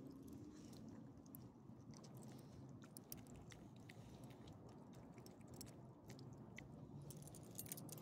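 Faint sound of small dogs chewing and licking food from a hand: scattered soft clicks and smacks.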